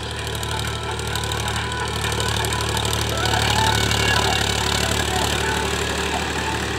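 Powertrac Euro 50 tractor's three-cylinder diesel engine running steadily under load as it pulls a cultivator through dry soil. It grows louder about halfway through as the tractor comes close.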